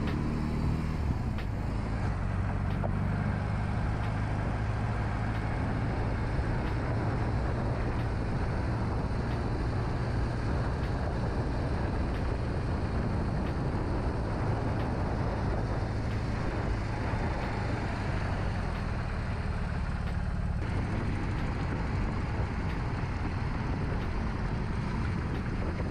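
BMW R 18 Transcontinental's 1,802 cc boxer twin running steadily at city cruising speed, mixed with wind and road noise.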